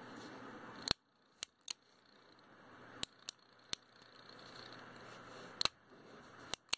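Sharp metallic clicks from the action of a Colt Model 1877 double-action revolver as its hammer is worked by hand: about ten clicks, some in quick pairs.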